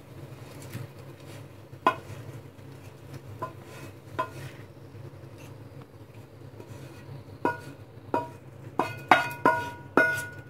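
Wooden spatula knocking and scraping against a tilted nonstick frying pan while pushing fried taro pieces out, each knock making the pan ring briefly. The knocks come a few at a time at first, then in a quick run near the end, over a steady low hum.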